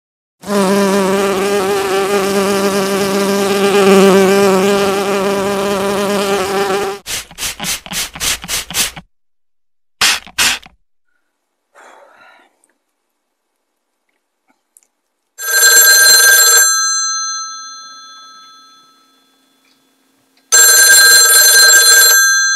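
A housefly buzzing loudly and steadily for about six seconds, then breaking into a string of short buzzes. Later an old-style telephone bell rings twice, each ring a rapid clatter of about a second that then dies away.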